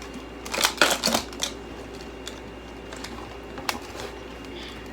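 Hard plastic parts of a Bissell vacuum cleaner clicking and rattling as it is taken apart by hand: a quick flurry of clicks about a second in, then one sharp click near the end.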